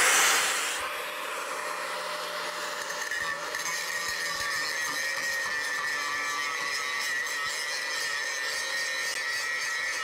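Corded angle grinder with a T27 grinding disc, pressed hard against a steel weld and grinding it down, a steady whining grind throughout. It is loudest in the first second, at the start of the grind.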